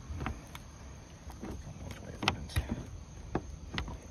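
Irregular knocks and thumps on the thin riveted aluminum skin of an old light airplane as someone moves across it, the loudest about two seconds in.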